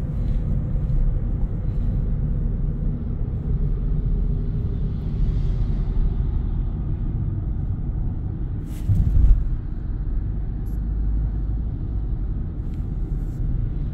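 Steady low road and tyre rumble inside the cabin of a Peugeot 208 driving at about 60 km/h, with a brief louder thump about nine seconds in.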